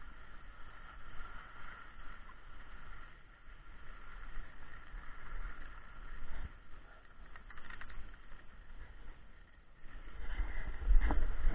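Skis sliding over snow, with wind buffeting the microphone as a low rumble. It gets louder in gusts near the end.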